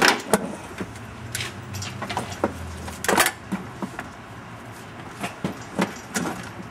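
Lifting chain clinking and metal clunking as a Subaru EA82 engine hanging from it is wiggled down into the engine bay by hand. Scattered sharp knocks, the loudest at the start and about three seconds in, over a low steady hum.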